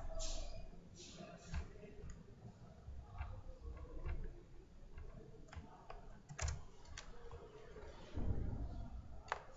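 Scattered clicks of a computer mouse and keyboard, irregular and spaced up to a second or so apart, with a low rumble swelling near the end.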